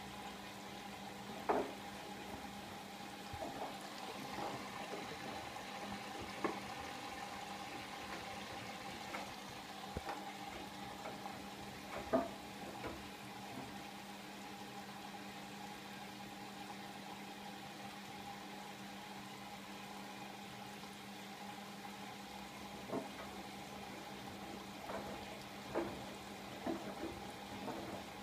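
Siemens iQ700 front-loading washing machine running mid-wash: a steady motor hum with water sloshing inside the drum and a few short knocks now and then.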